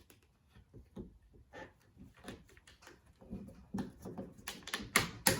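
Scattered clicks and creaks of plastic mounting tabs as a roof rail is pried off a car roof, ending in two sharp snaps a little after five seconds as the rail breaks free.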